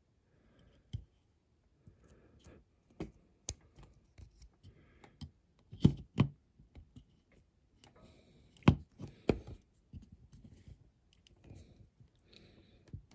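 Scattered small clicks and taps of metal tweezers and fingertips against a die-cast toy car body while a small glued plate is pressed into place on the bonnet, with a few sharper knocks around six and nine seconds in.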